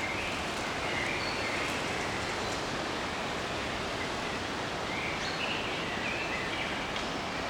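Forest ambience: a steady rushing background with small birds chirping and twittering at intervals, a few short high calls near the start and a livelier run of calls in the second half.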